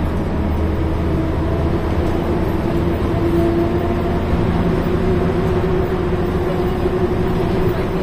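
Ikarus 280.49 articulated bus driving, heard from inside the passenger cabin: a steady engine drone with a pitched hum over road and body noise. The deep low rumble thins out about two seconds in while the hum carries on.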